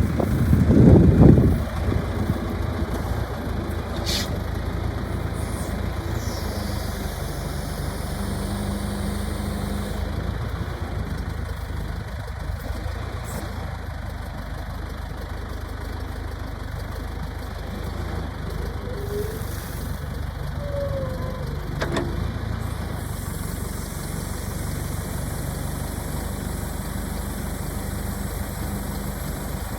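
John Deere 310-A backhoe's engine idling steadily, with a brief louder burst about a second in.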